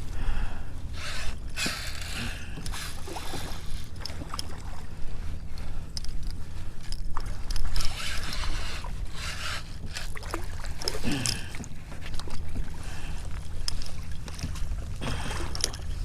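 Water splashing around a kayak in three bursts, over a steady low wind rumble on the microphone, while a hooked red drum is fought close by.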